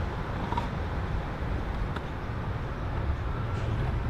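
A steady low outdoor rumble with no distinct events.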